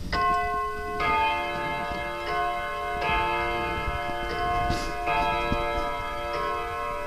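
FMS wall clock chiming on the hour: a sequence of ringing metallic notes about a second apart, each lingering into the next, with the clock's ticking faintly underneath.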